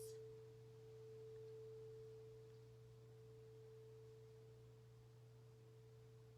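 A single faint, pure ringing tone from a sound-bath instrument, held and slowly fading.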